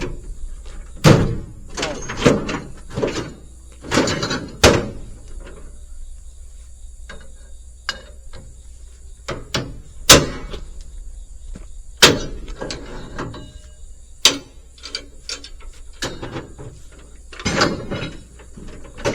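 Irregular sharp metal clanks and rattles of a tie-down chain and chain binder being worked and tightened to secure equipment on a trailer, about a dozen loud knocks spread through with chain rattling between them.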